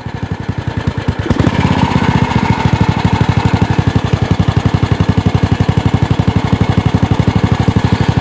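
BSA 441's single-cylinder four-stroke engine running as the motorcycle rides along, its exhaust firing in a rapid, even beat. It grows louder over the first second or so, then holds steady.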